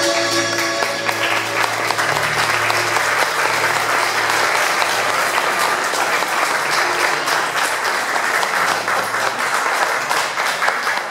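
A crowd clapping and applauding, swelling in about a second in and holding steady, with music of long sustained notes carrying on underneath.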